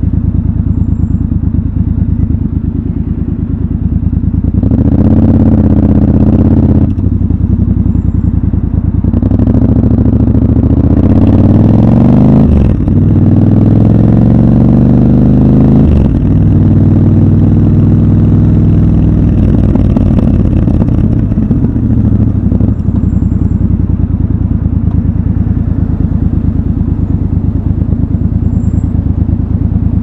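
Triumph Scrambler 1200 XC's 1200 cc parallel-twin engine idling, then accelerating through the gears, its pitch rising three times with a brief gap at each upshift. It then runs steadily and drops back to a lower, even note in the second half.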